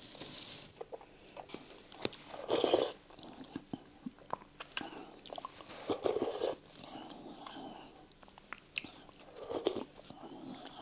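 A man chewing spoonfuls of okroshka, a cold soup of chopped potato, egg and sausage, with soft mouth sounds and a few sharp clicks.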